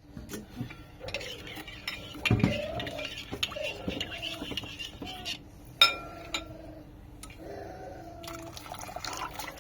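Kitchen utensils and dishes clinking and scraping, in scattered knocks with a sharp clink about six seconds in.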